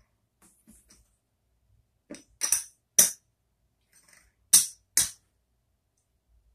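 Casino-style poker chips clacking as a hand picks them up and sets them down in small stacks on the felt. There are a handful of sharp clacks, in two pairs about half a second apart.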